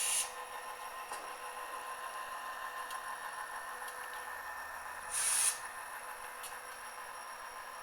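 Model locomotive sound decoder playing SD40-2 diesel engine sound through a tiny sugar-cube speaker: a steady, thin drone with no bass. Two short hisses of air cut in, one at the start and one about five seconds in.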